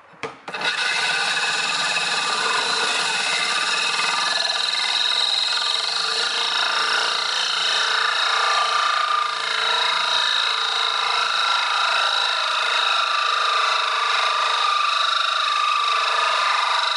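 Corded electric drill running steadily as its bit grinds a hole through the glass of an aquarium, with water poured on the cut for cooling. It starts about half a second in with a steady whine over the grinding.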